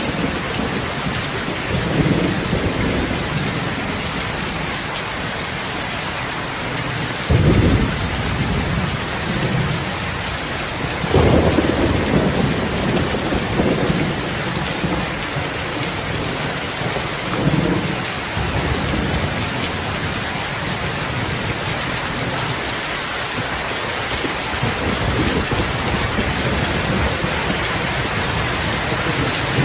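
Steady heavy rain with rolls of thunder, the strongest rumbles coming about seven and eleven seconds in.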